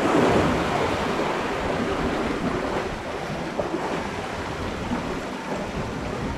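Ocean swell washing and sloshing through a narrow rock inlet, with wind on the microphone; a stronger surge at the start eases off over the first couple of seconds.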